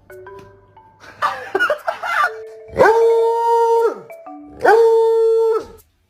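A dog howling: shorter wavering calls, then two long, held howls about a second each, each sliding up at the start and down at the end. A light marimba tune plays in between.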